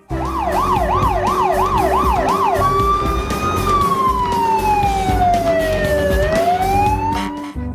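Electronic fire-truck siren: a fast up-and-down wail, about three cycles a second, for the first two and a half seconds, then a slow wail that holds, falls for a couple of seconds, rises again and cuts off near the end. A steady low tone runs underneath.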